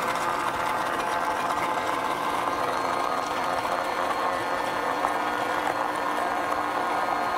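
Countertop blender motor running at a steady hum on a jar of frozen watermelon chunks and ginger; the fruit is too frozen to catch the blades, so the chunks stay whole instead of blending.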